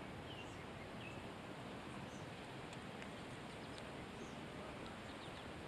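Faint steady outdoor hiss of wind and open air, with a couple of short bird chirps in the first second or so and a few fainter ones later.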